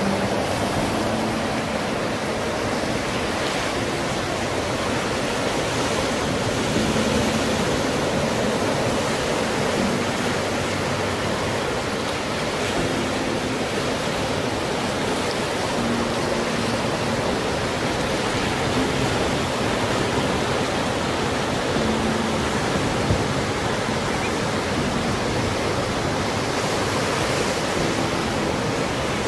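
Ocean surf washing over rock ledges and breaking on offshore rocks: a steady, unbroken rush of waves.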